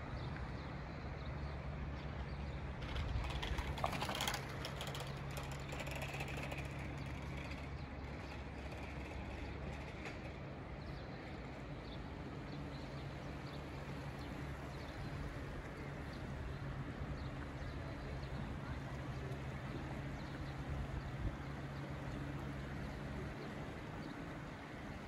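Outdoor town ambience with a steady low engine hum and a brief burst of clicking and rattling about three to five seconds in.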